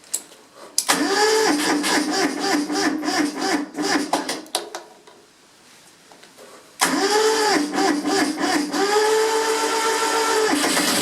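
Kubota B7001's three-cylinder diesel being cranked by its electric starter, the starter's whine dipping in a steady rhythm with each compression stroke: a hard cold start, which the owner puts down to the cold. It cranks for about four seconds, stops, cranks again about seven seconds in, and catches and starts running just before the end.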